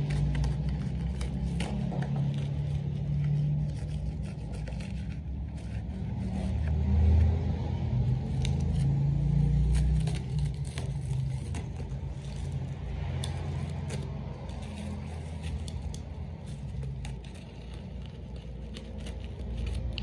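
A low rumble that swells and fades, with scattered clicks, crackles and scrapes from a bubble-wrapped plastic parcel being handled and cut open.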